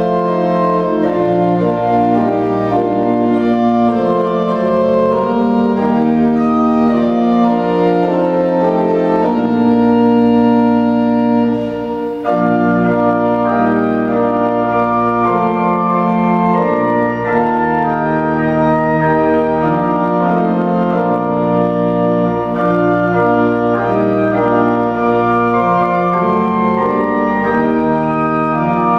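Church organ playing a hymn tune in sustained chords, with a short break about twelve seconds in.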